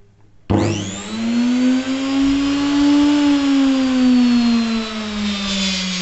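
Welling 9-pin universal motor from a front-load washing machine, run bare on mains for clockwise rotation, starts suddenly about half a second in and spins up to high speed. Its whine over a hiss climbs in pitch for a couple of seconds, then sags slowly while it keeps spinning.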